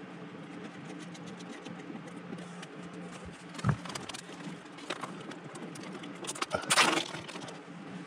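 Hands handling antenna cables and their screw connectors behind a router: small clicks, a short knock a little over three and a half seconds in, and a louder scraping rustle near the end, over a steady low hum.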